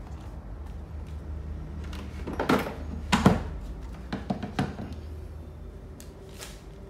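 Ryobi 18 V lithium-ion battery pack being pushed onto its plastic charger: a few hard plastic knocks and clicks, the loudest about three seconds in, followed by lighter taps.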